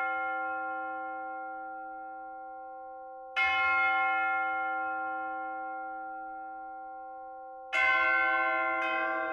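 A church bell struck twice about four seconds apart, each stroke ringing on and slowly dying away until the next. Near the end a second bell with a different pitch joins in.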